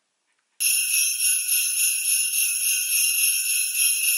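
Sleigh bells jingling in a steady, even shaking rhythm, starting suddenly about half a second in after a brief silence.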